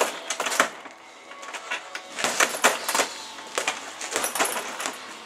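Boxing gloves punching an Everlast heavy bag in quick flurries of sharp slaps, with short pauses between them and the bag's hanging chain jingling.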